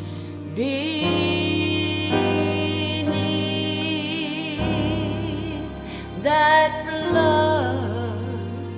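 A woman singing a slow hymn with vibrato on long held notes, over sustained instrumental chords.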